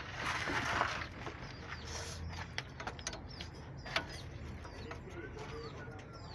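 A short hiss in the first second, then scattered sharp clicks and taps, with birds chirping softly in the background over a low steady hum.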